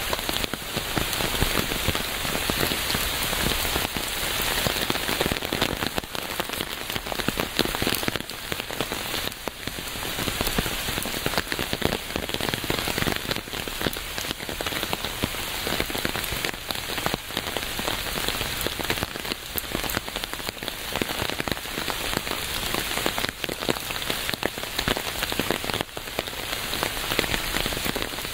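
Steady rain falling and pattering on a surface, an even hiss dense with small drop impacts.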